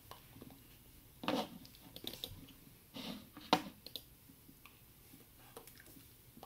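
Hands knocking, clapping and brushing against each other and against a knit cardigan while signing: four or five short soft knocks and rustles over faint room tone.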